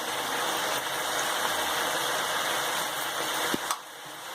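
Chicken pieces with onions and yogurt frying in oil in a pan, a steady sizzle. A short click about three and a half seconds in, then the sizzle drops away near the end.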